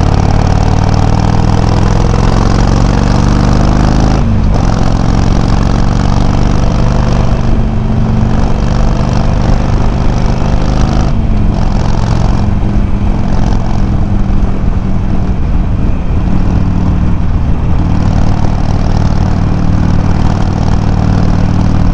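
Harley-Davidson Sportster 883's air-cooled V-twin running loud through Customer slip-on mufflers with low baffles, picked up by a microphone mounted on the bike. The engine note climbs, drops suddenly about four seconds in and again about eleven seconds in as the bike shifts up under acceleration, then runs fairly steady.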